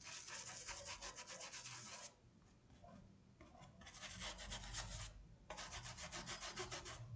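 Paintbrush scrubbing across a cotton tea towel in three spells of quick back-and-forth strokes, working a thin diluted yellow glaze over dry paint.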